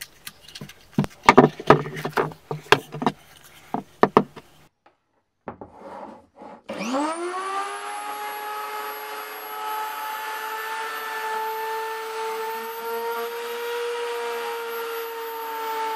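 A few knocks and scrapes as the resin-and-wood clock blank is handled on a wooden bench. About seven seconds in, an electric plunge router starts, its whine rising fast to speed, then runs steadily at an even pitch on its wooden sled over the epoxy piece.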